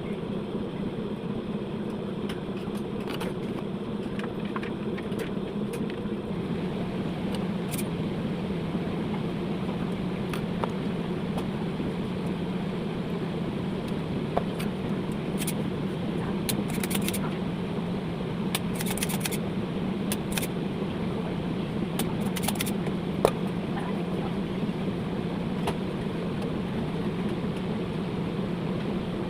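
A steady low mechanical hum, with scattered light clicks and ticks over it.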